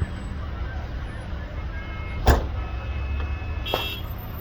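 Fireworks going off: one sharp bang about two seconds in, then a weaker burst with a brief crackle near the end, over a steady low rumble.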